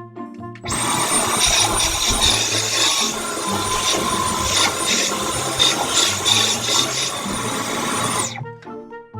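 Dyson V12 Detect Slim cordless vacuum running: a steady high whine over a rushing hiss. It switches on about a second in and cuts off suddenly near the end, after about seven seconds.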